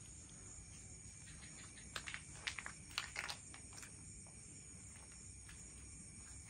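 Crickets chirring steadily. A cluster of short, sharp clicks and taps falls between about two and four seconds in.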